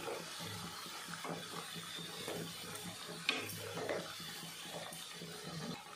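Coconut fritters deep-frying in hot oil in a kadai on high flame, nearly golden: a steady sizzle, with a spatula clicking against the pan about three seconds in.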